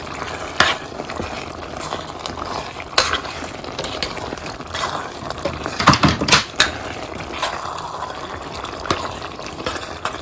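A utensil stirring a pan of prawns, potatoes and tomato sauce, knocking and scraping against the pan over a steady simmer. Single sharp knocks come early, then about three seconds in, a quick cluster around six seconds and one more near nine seconds.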